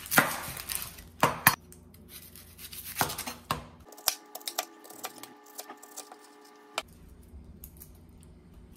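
Chef's knife slicing through a white onion and knocking on a wooden cutting board: several sharp strokes in the first three and a half seconds, the first the loudest.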